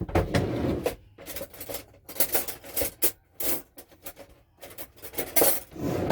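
A fork stirring a sauce in a bowl: a run of irregular scrapes against the bowl.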